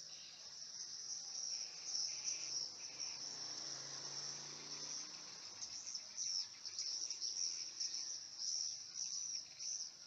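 High-pitched twittering of edible-nest swiftlets: a steady chirring with many short chirps over it, growing busier about halfway through.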